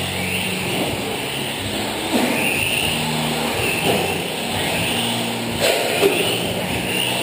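Several electric 4x4 short-course RC race trucks racing, their motors whining up and down in pitch as they speed up and slow through the turns. There is a sharp knock about five and a half seconds in.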